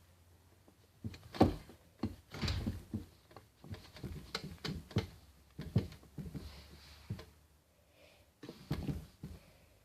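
Butter slime made from Model Magic and lotion being squished and pressed by hand, giving irregular soft clicks and thuds.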